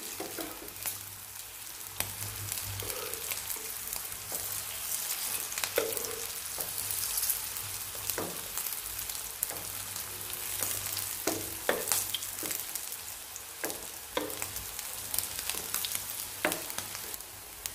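Potato patties shallow-frying in hot oil in a nonstick pan: a steady sizzle with a few sharp clicks scattered through it as a metal spatula turns the patties.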